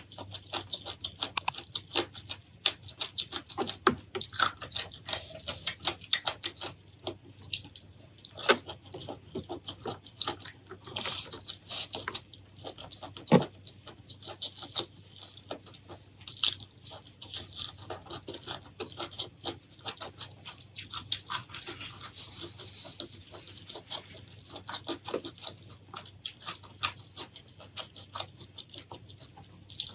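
Close-miked eating of seafood: wet chewing, smacking and squishing with many sharp clicks and crackles.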